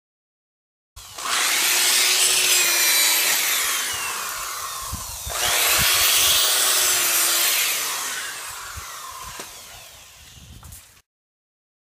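Corded hammer drill with a foot-long concrete bit boring into rocky soil, run in two long spells: it starts about a second in, starts again a little past the halfway point, and cuts off suddenly near the end. Its whine sags slowly in pitch through each spell.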